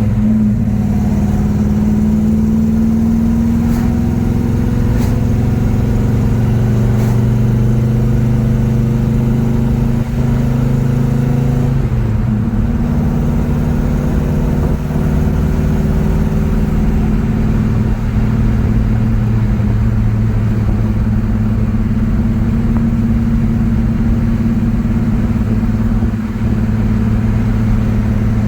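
1970 Pontiac GTO's freshly rebuilt 400 V8 running under light, steady throttle while driving, taken easy because it is still being broken in. The engine note climbs slowly, drops about twelve seconds in, then holds steady.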